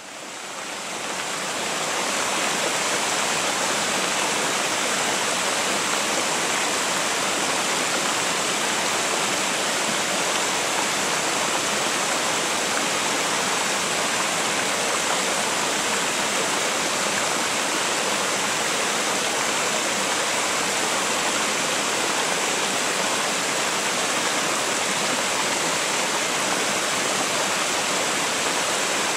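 Mountain river water spilling over a low stepped weir and rock ledges in small cascades, a steady, even rush of falling water. It fades in over the first couple of seconds.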